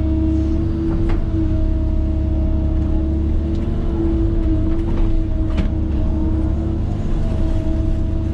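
Komatsu D51PX-22 crawler dozer's diesel engine running steadily under load with a constant whine over a heavy low rumble, and a couple of sharp knocks.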